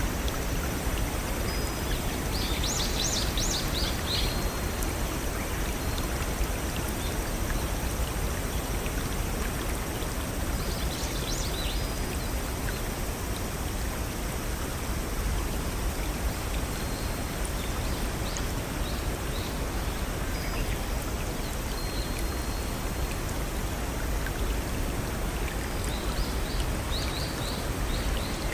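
Steady rushing of a small forest stream and waterfall. A bird sings a short burst of rapid high notes about every eight seconds over it.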